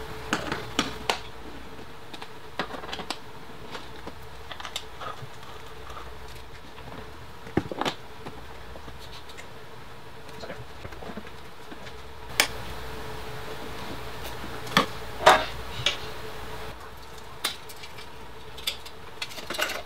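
Scattered clicks and knocks of a Yamaha YZ125 dirt bike's plastic bodywork and its bolts being handled as the shrouds and panels are taken off, the sharpest knocks past the middle. A faint steady hum lies underneath.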